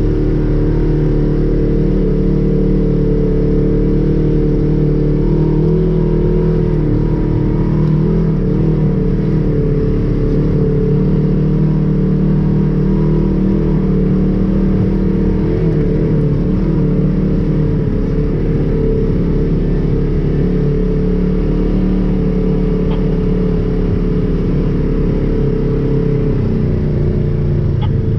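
Side-by-side UTV's engine running steadily under throttle, heard from inside the cab as it drives a dirt trail, the engine speed wavering slightly up and down.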